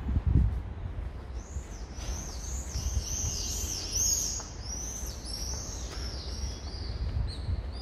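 Small birds chirping: many quick, high, arched chirps overlap, starting about a second and a half in. A low rumble runs underneath, with a thump near the start.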